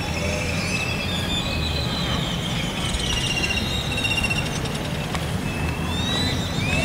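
Outdoor ambience: a steady low rumble of wind on the microphone with many birds chirping and whistling over it, a few rising whistles near the end.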